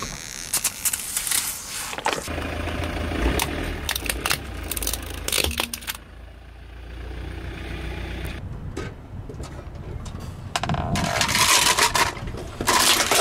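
A car tyre rolling slowly over and crushing a series of plastic objects: a soda bottle bursting, then a game controller and a plastic toy cracking and crunching. Heard as many sharp cracks and snaps over a low, steady engine rumble, with the densest crackling near the end.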